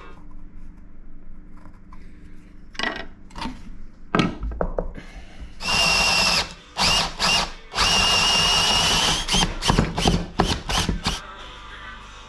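Cordless drill run in bursts: two longer runs of about a second each with a steady whine, then a quick string of short trigger pulses near the end. A few knocks come just before the drill starts.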